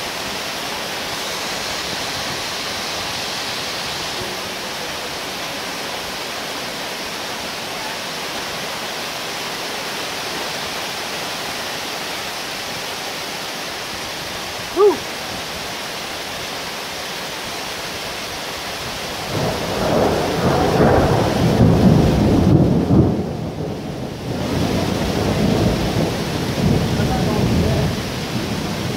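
Heavy rain falling steadily in a thunderstorm. About two-thirds of the way through, a loud thunderclap rolls and rumbles for about eight seconds, easing briefly in the middle. A single short chirp sounds about halfway through.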